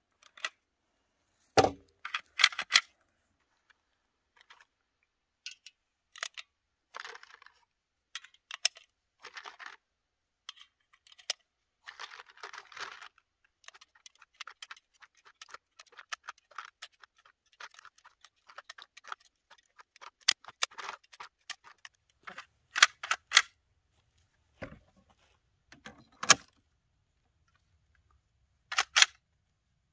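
Scattered metallic clicks and short rattles of cartridges being pressed one by one into a PPS43C pistol's magazine while the gun is handled, with a couple of heavier knocks. Several sharp clacks come near the end as the magazine is seated and the gun readied.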